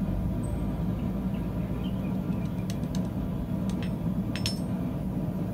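Steady low background hum, with a few faint metallic clicks in the second half as blacksmith tongs and a square steel block are handled against a steel stand top.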